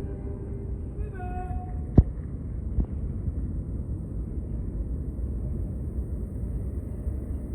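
Steady low outdoor rumble. Ceremony music ends in the first half-second, a short pitched call with stepping notes comes about a second in, and a single sharp knock about two seconds in.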